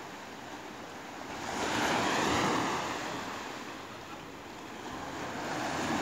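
Small waves breaking on a sandy beach, their wash swelling up and fading away about two seconds in, with the next wave building near the end.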